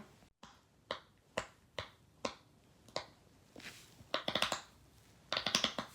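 Silicone pop-it fidget toy being pressed: single small pops about half a second apart, then two quicker runs of pops near the end.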